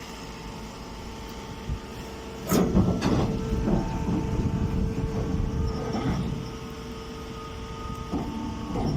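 Baling machine running with a steady motor hum, with loud clattering and rattling starting about two and a half seconds in and lasting a few seconds, then again near the end.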